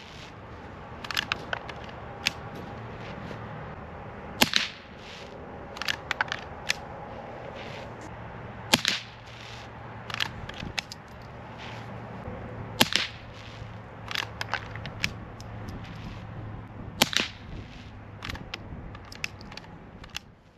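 Henry Golden Boy .22 LR lever-action rifle firing CCI Quiet subsonic rounds: four sharp shots about four seconds apart. Between the shots come short clusters of clicks as the lever is worked to chamber the next round.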